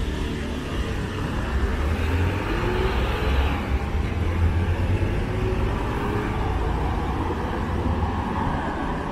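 Road traffic on a city street: a steady low rumble of engines and tyres, swelling to its loudest in the middle as vehicles pass close by and easing off towards the end.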